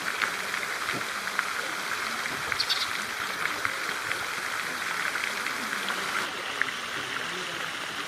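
Steady rushing noise of flowing water, with short high ticks scattered through it.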